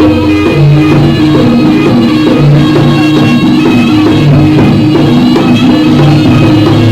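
Loud live jaranan gending from the troupe's ensemble: drums keep a steady rhythm under held, repeating pitched notes, with no singing.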